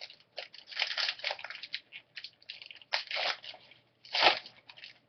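Foil wrapper of a trading-card pack being torn open and crinkled in the hands: irregular crackling and tearing, with the loudest crackle about four seconds in.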